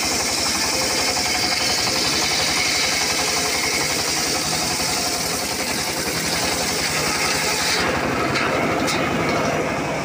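Homemade engine-driven circular sawbench ripping an acacia log lengthwise: the engine runs steadily with a fast even pulse while the blade hisses through the wood. About eight seconds in the hiss of cutting stops, leaving the engine and free-spinning blade, with a couple of short clicks.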